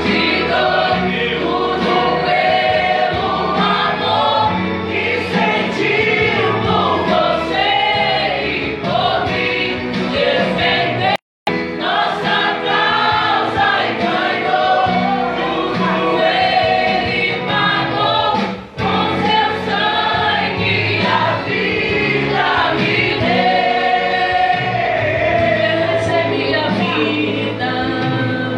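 A choir singing a song with musical accompaniment. The sound cuts out completely for a fraction of a second about 11 seconds in.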